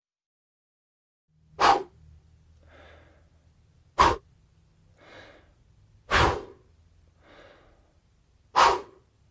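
Short, sharp puffs of breath blown at a microphone, four times about two and a half seconds apart, with softer breaths between them.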